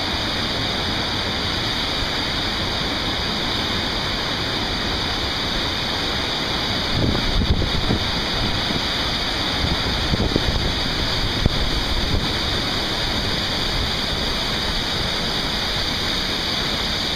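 Steady rushing roar of a mountain-torrent waterfall crashing close by. A few low bumps come around seven and ten seconds in, and a brief sharp knock follows shortly after.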